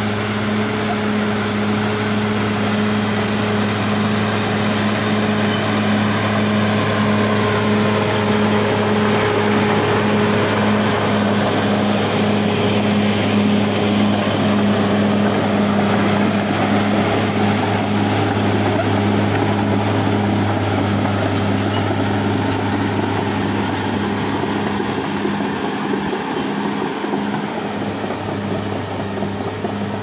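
Caterpillar D6R XL bulldozer's diesel engine running steadily with a constant low hum while the dozer pushes soil with its blade, easing off slightly near the end.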